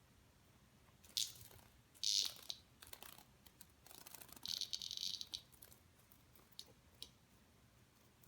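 A pet mouthing and chewing a cicada: short rasping, crunching bursts, a sharp one about a second in, another about two seconds in and a longer one of nearly a second about four and a half seconds in, with fainter clicks after.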